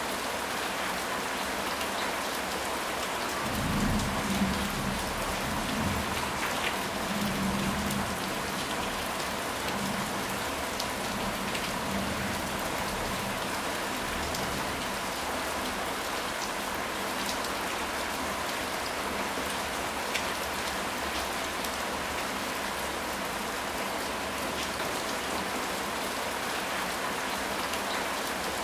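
Steady rain falling on surfaces, with low rolls of thunder rumbling between about four and eight seconds in.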